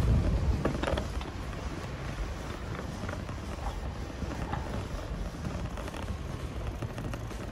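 Wind buffeting the microphone as a low rumble that is loudest in the first second and then eases, over steady outdoor street background noise.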